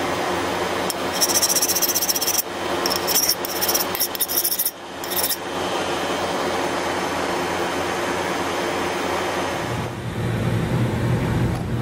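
Steady roar of a propane forge burner, with two stretches of harsh scraping on the quenched steel blade, one about a second in and a longer one from about three to five seconds. From about ten seconds in a lower steady hum takes over.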